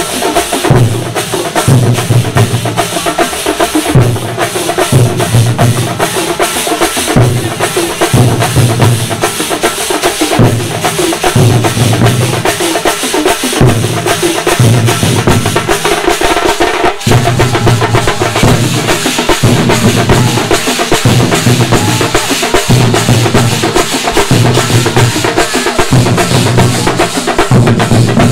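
Thambolam percussion troupe playing a loud, fast rhythm on large stick-beaten drums and cymbals, with a deep booming beat pulsing about once a second beneath the dense strokes.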